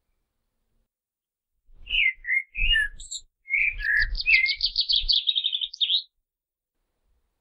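Common blackbird singing: two short phrases of whistled notes starting about two seconds in, the second ending in a fast, higher twittering run.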